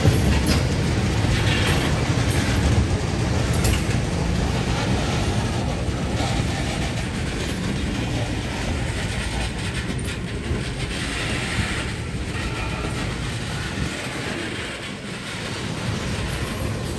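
Loaded ethanol tank cars rolling past on the rails: a steady rumble of steel wheels on track with occasional clicks.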